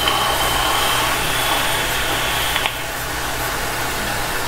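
A long drag on a vape: a steady airy hiss with a faint thin high whine. The whine stops with a click just under three seconds in, and a lower steady hiss carries on as the big cloud is exhaled.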